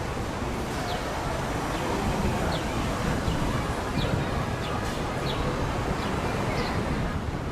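Steady rushing roar of wind and water, with short high bird calls repeating about once a second over it.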